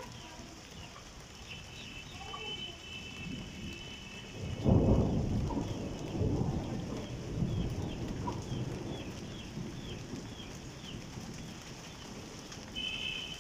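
A thunderclap breaks about four and a half seconds in and rumbles on for several seconds with a couple of further swells, over the steady hiss of monsoon rain. Faint chirping calls sound now and then over the rain.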